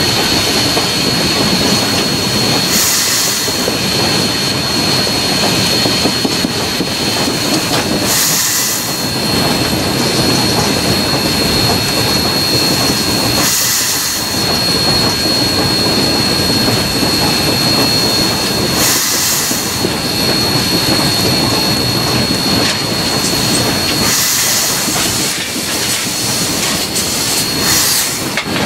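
Cab of a moving 2-8-2 Mikado steam locomotive: a steady, loud running noise of the engine and its wheels on the track, with a faint steady whine. A short hiss of steam comes back about every five seconds.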